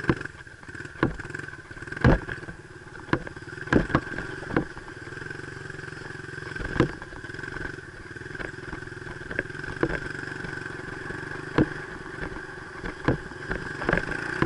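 Honda dirt bike engine running at a fairly steady speed, with frequent sharp knocks and clatter as the bike jolts over the rutted dirt track.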